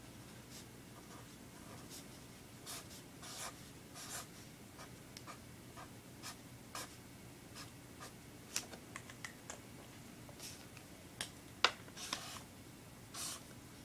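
Marker pen scratching across paper in short, irregular strokes, writing out numbers.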